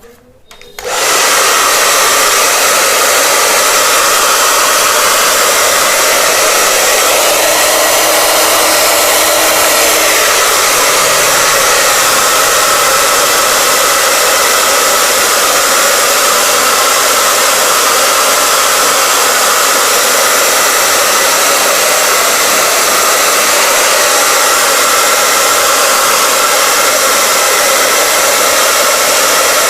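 Handheld hair dryer switched on about a second in, then running with a loud, steady blowing noise.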